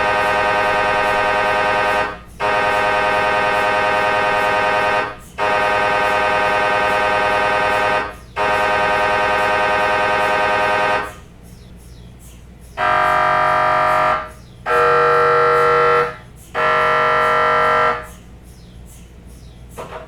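MRI scanner's gradient coils buzzing in a loud, steady pitched tone, in blocks of about three seconds with brief breaks between them. After a pause of nearly two seconds, a different buzz comes in three shorter pulses of about a second and a half each.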